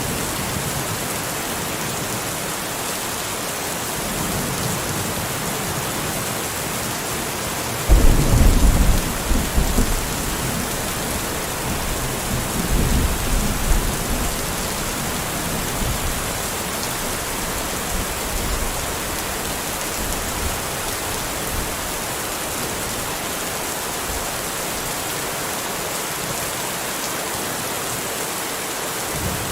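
Steady heavy rain hissing, with a sudden roll of thunder about eight seconds in that rumbles for a couple of seconds, then a softer rumble a few seconds later.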